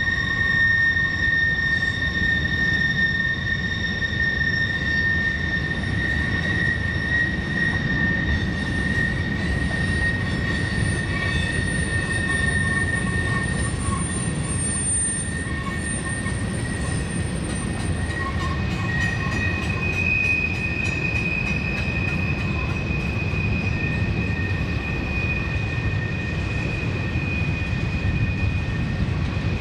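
Loaded freight hopper cars rolling past with a steady rumble of wheels on rail and a sustained high wheel squeal. The squeal's pitch shifts higher about two-thirds of the way through.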